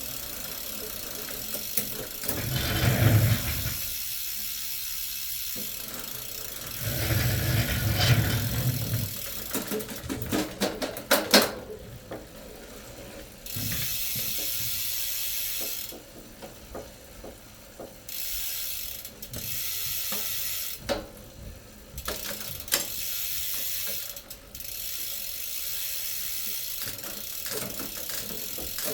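Fast ratcheting clicks from a ratchet mechanism, starting and stopping in stretches of a few seconds, with a few louder clunks and sharp clicks in the first half.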